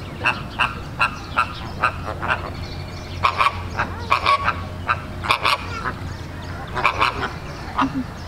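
A flock of American flamingos calling: many short, goose-like honks overlapping in irregular clusters, with a steady low rumble underneath.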